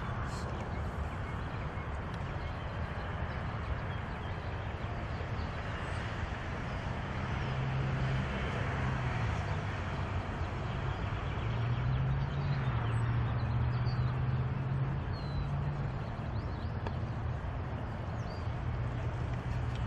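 Open-air background noise with the low drone of a passing motor vehicle, which swells and shifts in pitch through the middle, and a few faint bird chirps in the second half.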